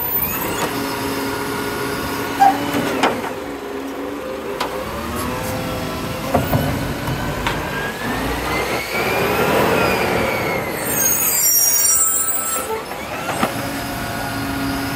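Isuzu 240-350 side-loader garbage truck's six-cylinder diesel running, rising in pitch as the truck pulls forward and falling away as it slows, with a few clanks. A short hiss of the air brakes comes as it stops, near the end.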